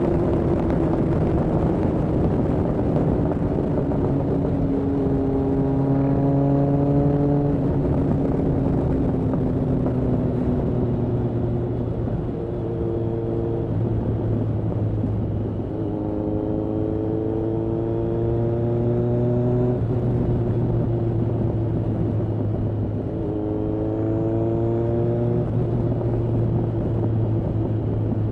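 Kawasaki ZRX1200R's inline-four engine with Yoshimura TMR-MJN carburettors, riding under way. The engine note climbs in pitch and breaks off at a gear change three times, over a steady low drone and rushing noise.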